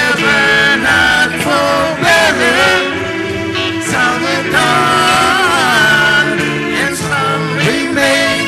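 A song: singing voices over instrumental accompaniment.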